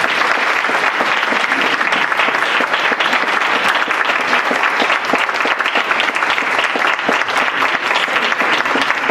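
Audience applauding steadily, a dense, even clapping of many hands.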